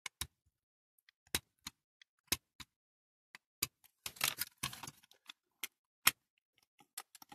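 Irregular sharp metallic clicks and taps, with a short scraping rustle about four seconds in, as small hand tools work at the stuck parts of a diecast Dinky toy fire engine.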